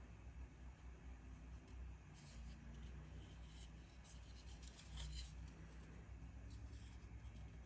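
Faint rubbing and light scraping of fingers turning a small 3D-printed plastic boat in the hand, with a few soft clicks over a low hum.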